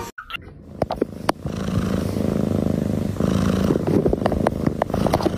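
A domestic cat purring loudly close to the microphone: a steady low rumble with a fine throbbing pulse. A few sharp clicks sound over it.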